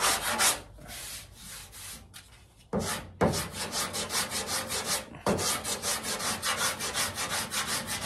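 A flexible sanding block with sandpaper rasps in quick back-and-forth strokes, about four a second, over body filler on a 1968 Pontiac Firebird front fender as the dented body line is block-sanded back into shape. The strokes stop for about two seconds shortly after the start, resume near three seconds, and pause briefly near five seconds.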